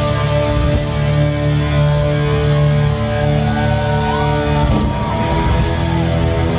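Heavy metal band playing live and loud: drum kit and cymbals under electric guitar with long held notes and a bend in pitch about four seconds in.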